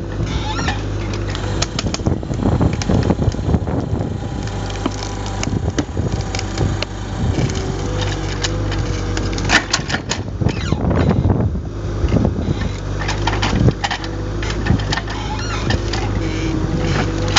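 A 3-ton mini excavator's engine runs steadily, driving a hydraulic cone splitter that bores into knotty beech. Irregular cracks and creaks come from the wood as it splits, with a cluster of sharp cracks about ten seconds in.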